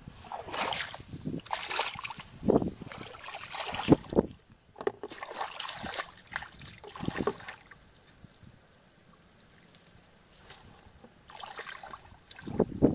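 Wading and splashing in a shallow muddy puddle: irregular splashes and sloshes of water, with a quieter lull about two-thirds of the way through and more splashing near the end.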